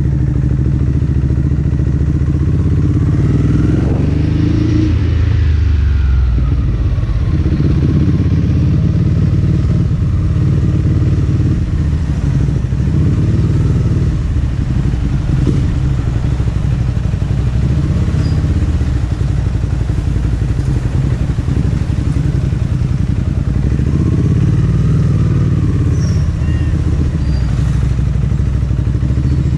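Ducati Hypermotard SP's L-twin engine running at low speed in stop-and-go traffic, with a short blip of revs about four seconds in.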